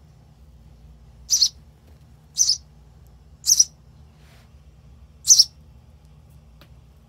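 Nestling sparrow giving short, high begging cheeps as it is hand-fed: four loud calls about a second apart and a fainter one between the last two.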